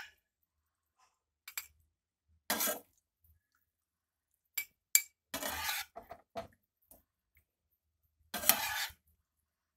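Slotted spatula scraping and clinking against a nonstick frying pan and a glass bowl while pasta is scooped out and served, in a few short separate strokes with sharp clicks near the middle.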